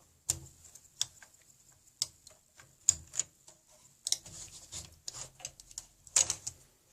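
Sharp plastic and metal clicks and rattles as parts are unlatched and taken out of a Dell OptiPlex GX620 ultra small form factor PC case: single clicks about a second apart at first, then denser clicking and handling from about four seconds in.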